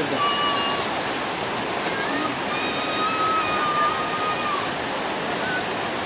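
Steady rush of falling water from a waterfall, an even hiss with no break.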